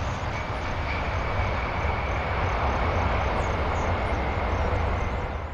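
Boeing 747's four jet engines during the landing rollout just after touchdown: a steady deep rumble of engine noise with a thin, steady high whine above it.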